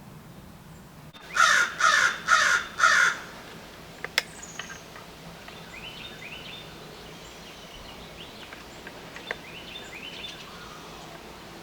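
American crow cawing four times in quick succession, followed by faint high chirps from small birds.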